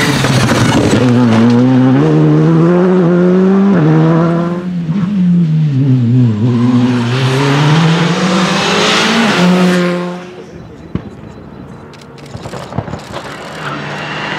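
Rally cars at full speed on a gravel-strewn stage: the engine is revved hard, its pitch climbing through the gears with sharp drops at each shift or lift. About ten seconds in, the engine sound cuts away to a quieter stretch with scattered sharp clicks, and another car's engine rises near the end.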